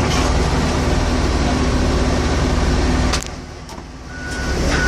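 Heavy equipment engine running steadily; about three seconds in it drops away sharply, then builds back up. Near the end a reversing alarm starts beeping at an even pace.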